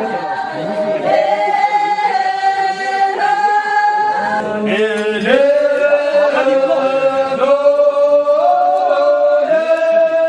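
A group of voices singing a slow, chant-like song in unison, holding long notes of a second or two each and stepping between them.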